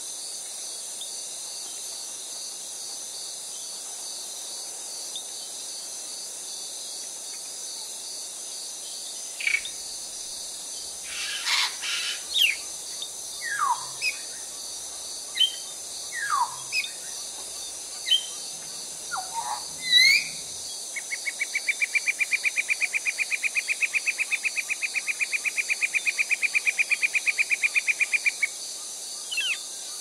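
Forest soundscape: a steady high insect hum, with scattered bird calls coming in about ten seconds in, mostly short falling whistles and chirps. Later a bird gives one long, even, rapid trill lasting about seven seconds.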